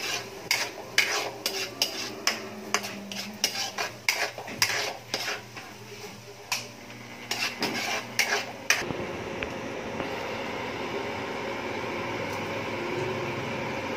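Metal ladle clattering and scraping against a steel wok, stirring onions and garlic sautéing in margarine. The stirring stops about nine seconds in, leaving a steady hiss.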